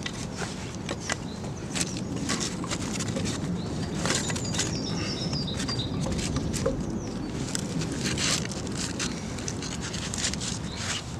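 Irregular knocks and scrapes of wood on wood as split sticks are wedged under the logs of a pole bed to level it, with birds chirping in the background.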